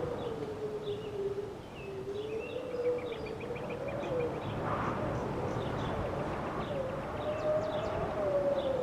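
Small birds chirping and trilling over a continuous tone that slowly wavers up and down without a break.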